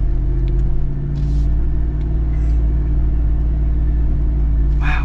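Jeep Wrangler Rubicon 392's 6.4-litre HEMI V8 running steadily at low revs on an off-road trail, a low, even drone. A brief higher noise comes just before the end.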